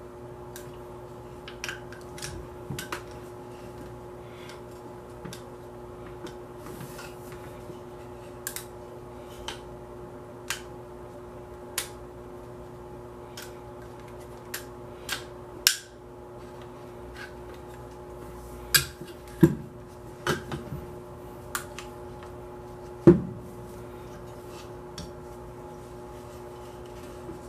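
Metal parts of an AR-15 pistol clicking and clanking as the receivers are handled and wiped down with a rag: scattered light clicks, with a few louder knocks in the second half, the loudest near the end. A steady low hum runs underneath.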